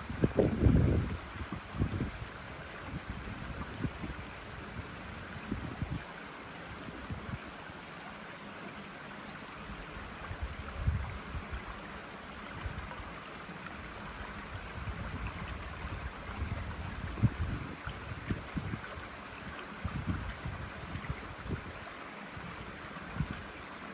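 Forest ambience: a steady rushing hiss with irregular low gusts of wind buffeting the microphone, the strongest in the first second or two.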